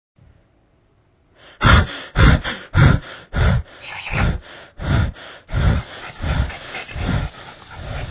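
A person's voice giving a run of short, loud grunting gasps, about one and a half a second, starting about a second and a half in.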